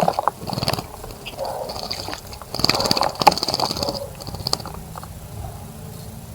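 A small bird bathing: bursts of rapid wing-fluttering and splashing in shallow water, the longest about halfway through.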